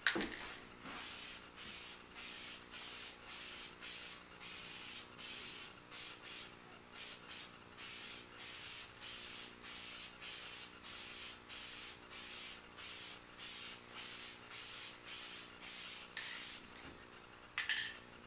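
Aerosol can of spray lacquer hissing in short, evenly repeated bursts, about two a second, as a coat is sprayed on.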